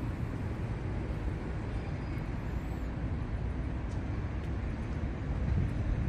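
Outdoor city street ambience: a steady low rumble, with a few faint ticks.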